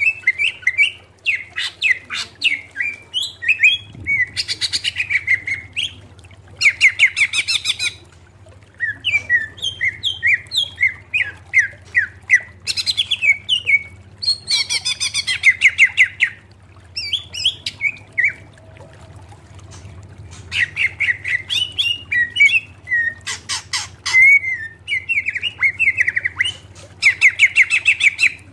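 Male greater green leafbird (cucak ijo) singing: varied chirping and whistled phrases with short pauses between them, several of them fast rapid-fire runs of repeated notes.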